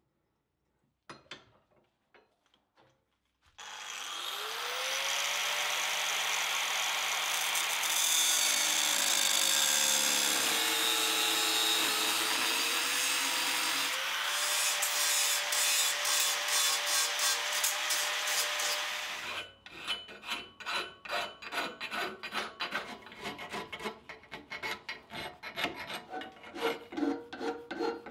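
A small hand-held power grinder spins up about three seconds in and cuts a slit into the angle-iron steel, its motor tone dipping and recovering under load. It stops at about nineteen seconds, and a hand file then rasps back and forth across the cut steel in quick, even strokes.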